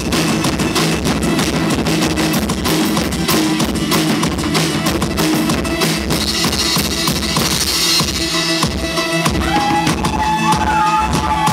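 Live band playing loud, drum-heavy music: rapid drum-kit hits and crashing cymbals over a steady low drone. About eight seconds in, a sustained higher tone comes in over the drums.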